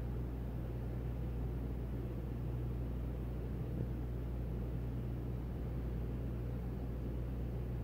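Steady low mechanical hum with a constant rushing noise, unchanging throughout, typical of running room or tank equipment such as ventilation or a water pump.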